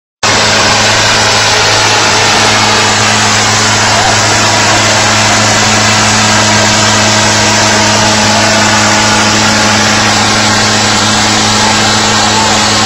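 Tractor diesel engines running loud and steady at an unchanging pitch, working under load as one tractor pulls against the other. Voices rise faintly near the end.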